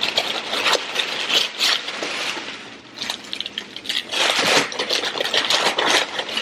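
White packing paper rustling and crinkling in irregular bursts as it is pulled out of a box and unfolded by hand, with a quieter lull partway through.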